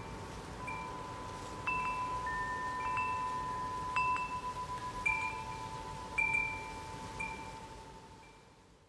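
Chimes struck irregularly at several pitches, each note ringing on, over a steady wind-like hiss; the whole sound fades out near the end.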